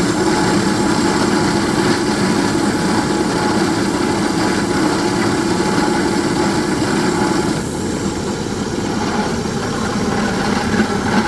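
Rock drilling rig running steadily, a loud continuous machine noise that drops a little and changes about two-thirds of the way through.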